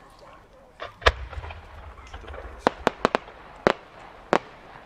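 Size-8 senrin firework shell bursting: a deep boom about a second in, then a string of sharp cracks as its many small flowers go off.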